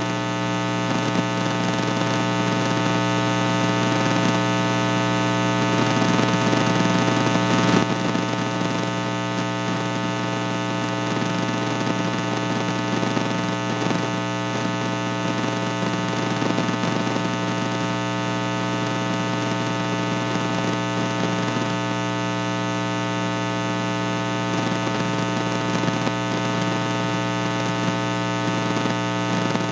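Loud, steady electrical mains hum: a buzz with many evenly spaced overtones over a hiss of static, unchanging throughout.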